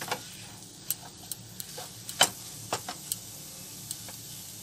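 Spatula tapping and scraping against a non-stick kadhai while stirring mashed potato and gram flour in a little hot oil: about nine irregular clicks, the loudest a little past two seconds in.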